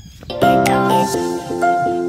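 Background music starts about half a second in: a melody over repeating chords.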